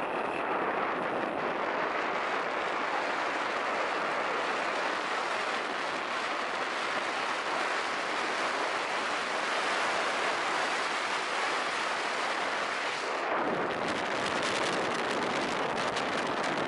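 Steady rush of wind and road noise on a moving motorcycle, with no clear engine note. About thirteen seconds in it turns to heavier, gusty wind buffeting on the microphone with more low rumble.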